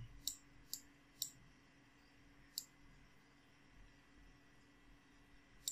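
Computer mouse clicking a few times, sharp and irregularly spaced: three clicks in the first second and a half, one about two and a half seconds in, and one near the end, over near silence.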